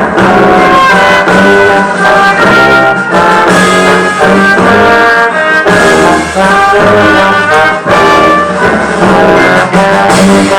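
Loud brass-led band music, with trombone- and trumpet-like lines playing shifting chords over a steady pulse.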